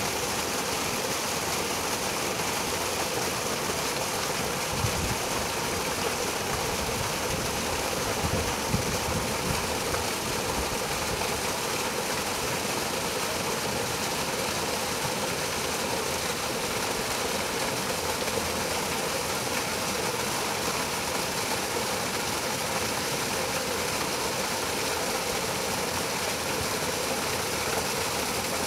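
Mountain stream rushing over granite boulders in a small cascade: a steady, even rush of water, with a few low thumps in the first third.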